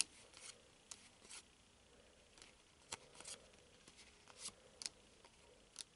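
Faint, scattered short swishes and light taps of trading cards being handled and laid down on a table.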